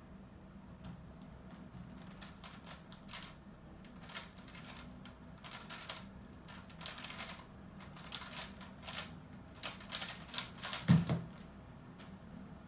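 GAN 354 M magnetic 3x3 speedcube being turned at speed: a fast, uneven clatter of plastic clicks in quick bursts for about nine seconds of the solve. It ends about eleven seconds in with a loud thump as the cube is set down on the mat.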